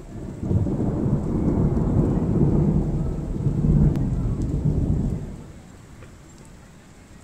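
A long, low roll of thunder that swells about half a second in, rumbles for about five seconds and fades away, with the faint hiss of rain beneath it.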